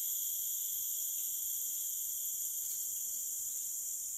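Steady chorus of forest insects, an unbroken high-pitched drone at several pitches at once.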